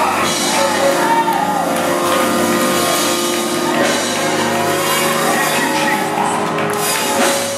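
Live church band music with long held chords, and a man's voice coming through the microphone and PA over it.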